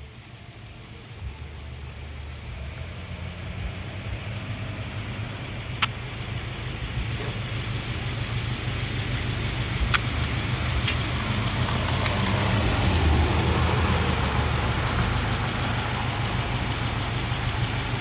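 Strong wind buffeting the microphone, a rumbling rush that builds gradually in strength, with two brief clicks partway through.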